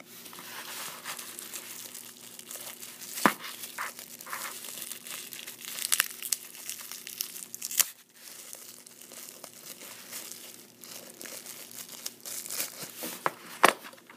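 Thin clear plastic packaging bag crinkling and rustling as it is handled and pulled at, with two sharp clicks, about three seconds in and near the end.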